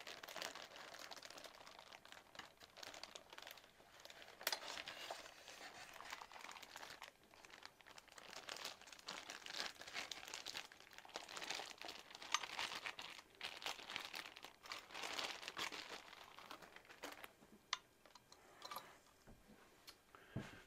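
Packaging crinkling and rustling in irregular bursts with small clicks as a boxed model locomotive is unwrapped and handled.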